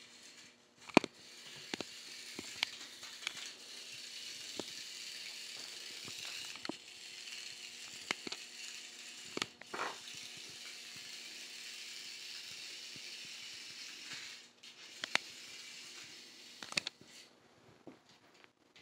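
Scattered sharp clicks and clinks, plausibly a kitten batting a small metal can about on a concrete floor, the loudest about a second in. Under them runs a steady hiss that stops about fourteen seconds in.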